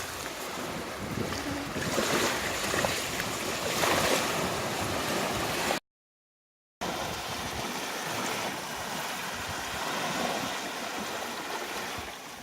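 Sea waves washing on the shore, with wind buffeting the microphone. The sound cuts out completely for about a second midway, then resumes.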